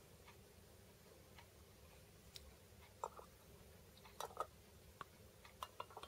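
Faint, light clicks of small metal cat-food tins being set one on top of another in a stack, a few taps spread through, most of them in the second half.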